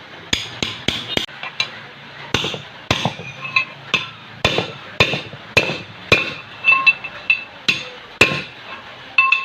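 Hammer blows tapping a heated starter ring gear onto a Maruti 800 flywheel: about two sharp metal-on-metal strikes a second, at an irregular pace, each with a brief ringing tone.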